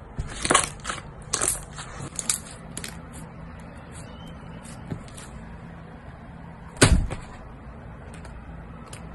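Clear slime being pressed and stretched by hand, giving sticky clicks and small pops of trapped air, packed close together in the first few seconds and then sparser. A single louder pop comes about seven seconds in.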